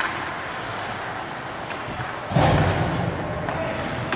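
Ice hockey play with a single loud thud against the rink boards about two and a half seconds in, ringing briefly, over steady arena noise.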